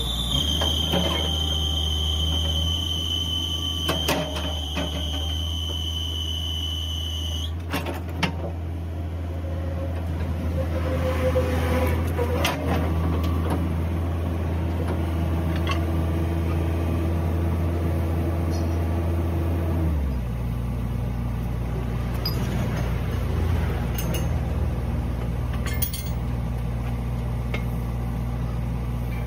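A heavy engine running steadily at idle, a low hum that shifts in pitch about twenty seconds in. A high steady whine sounds over the first seven seconds, and there are a few light knocks.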